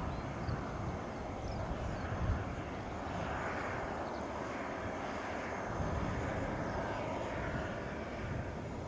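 Cessna 525C Citation CJ4 business jet taxiing, its two Williams FJ44 turbofan engines running with a steady rush of jet noise that swells a little now and then.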